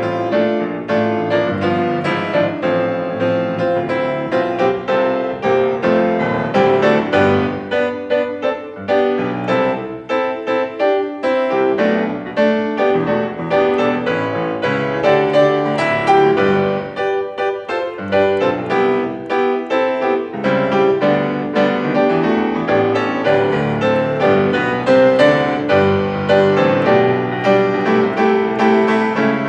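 Instrumental piano music, a continuous run of notes and chords.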